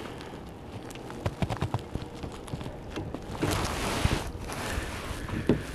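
Handling noise on an action camera: irregular light knocks and rubbing as a gloved hand grabs and moves the camera, with a short louder scuffing about three and a half seconds in.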